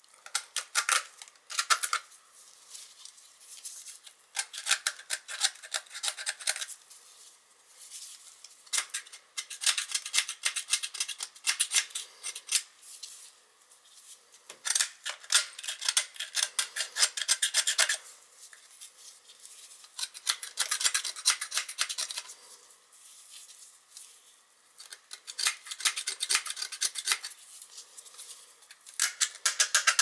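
A small hand tool scraping and cleaning a removed metal part of a Beckett oil burner, in runs of quick metal-on-metal strokes lasting a second or a few seconds, with short pauses between runs.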